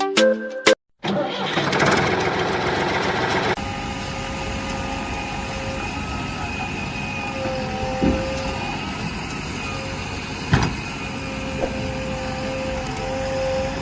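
A vehicle engine starts and runs loud for a couple of seconds, then settles to a steady running hum with faint whining tones. Two sharp knocks come through it, one about halfway and one later.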